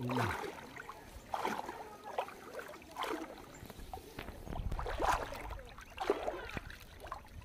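Shallow floodwater splashing and sloshing in irregular bursts as a man wades and hauls a gill net up out of the water.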